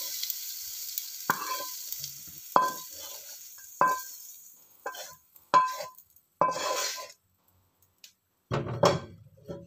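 A spatula knocking and scraping against a wok as the last of a stir-fry is scooped out, each knock leaving a short ring from the pan, over a hissing sizzle of hot oil that fades out about halfway. Near the end there is a heavier, deeper clunk.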